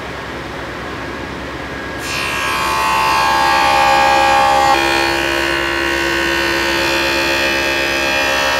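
Table saw with a dado stack running, then cutting a rabbet along the edge of a maple board: a steady running hum, then about two seconds in a louder whining cut, with the whine's pitch shifting a little about halfway through.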